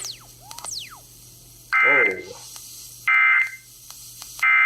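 Three short bursts of Emergency Alert System digital data tones from a radio broadcast, about 1.3 seconds apart, a warbling two-tone code of the kind sent as the end-of-message signal after an alert. In the first second there are two quick falling whistles.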